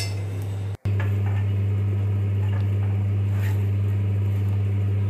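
A steady low hum with a fainter higher overtone, broken by a brief dropout about a second in.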